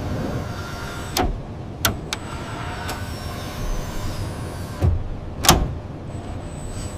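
Steady low machine hum with about five sharp knocks, the loudest about five and a half seconds in.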